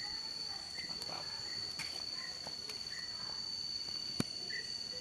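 Insects shrilling with a steady high-pitched drone, with short chirps repeating about every three-quarters of a second and a single sharp click about four seconds in.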